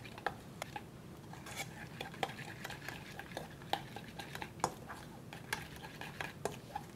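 A utensil stirring and whisking a cream sauce in a bowl, clicking against the side irregularly, about one or two clinks a second.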